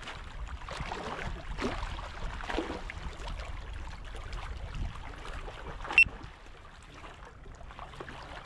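Water lapping against rocks and wind buffeting the microphone, with one sharp click about six seconds in.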